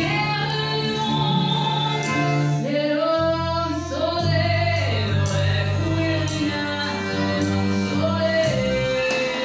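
Live band playing a French chanson with a woman singing over it: held sung notes over a moving bass line and regular drum strokes, ending on a long held note.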